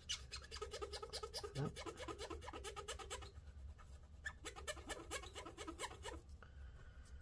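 Wad of paper towel wet with isopropyl alcohol rubbed back and forth on a bare CPU die, squeaking in two runs of fast, chattering squeaks with a short pause about three seconds in.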